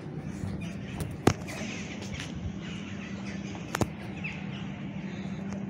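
Birds chirping over a steady low hum, with two sharp clicks about two and a half seconds apart, the first the louder.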